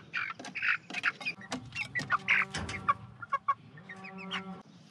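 Young chickens peeping: a rapid run of short, high chirps.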